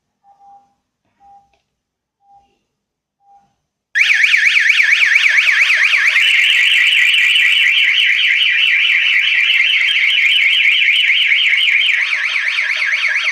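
Kerui wireless alarm system's siren: a few short soft beeps about once a second, then about four seconds in a loud electronic siren sets off, warbling up and down several times a second and changing its pattern twice. The siren is the alarm going off once the motion detector has been tripped.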